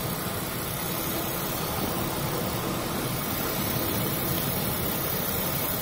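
Steady, even rushing noise of storm wind and heavy sea aboard a container ship ploughing through large waves, with no separate wave impacts standing out.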